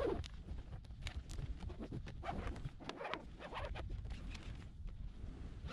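4 mm lacing rope being pulled through the eyelets of a Hobie 16 trampoline and its lacing strip, heard as a string of irregular rubbing, zipping strokes.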